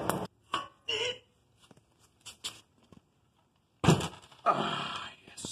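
Scattered metal clicks and clinks as a go-kart roller chain is handled. About four seconds in comes a loud knock, then scraping, as the small kart engine is set down on a wooden workbench and shifted.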